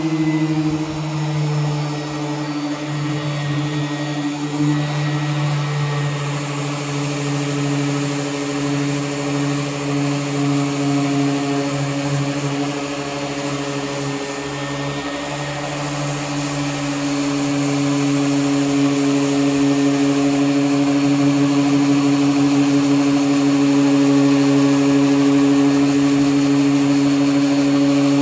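Power sander running steadily on car body panels, a humming motor whose pitch sags slightly and then climbs back, getting louder in the second half.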